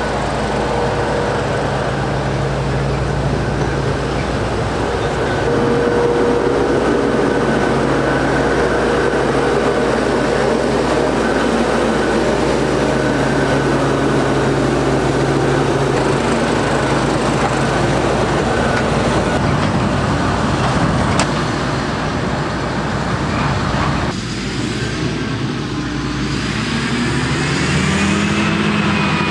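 John Deere 9800i self-propelled forage harvester running steadily under load while harvesting maize, its Liebherr V12 engine giving a loud, even drone. The sound shifts suddenly about 24 seconds in, and an engine note rises near the end.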